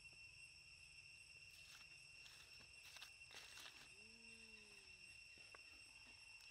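Steady high-pitched drone of insects, several constant tones at once. A few brief rustles come in the middle, and a short low call that falls slightly, about a second long, comes about four seconds in.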